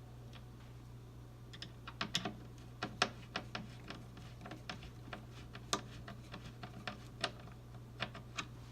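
Irregular light clicks and taps of small metal assembly hardware being handled, as cam bolts are fitted into a flat-pack cabinet's particleboard panel, over a steady low hum.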